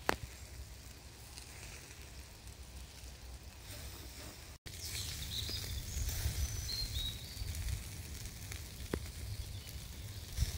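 Chicken thighs sizzling faintly over charcoal in a metal grill basket, under a low outdoor rumble that gets louder after about four and a half seconds. A few short high chirps follow soon after.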